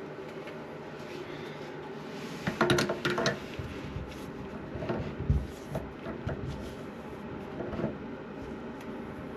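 Knocks and clicks of toilet plumbing parts and tools being handled: a quick cluster of sharp clacks about two and a half seconds in, then a few softer knocks and a dull thump a couple of seconds later.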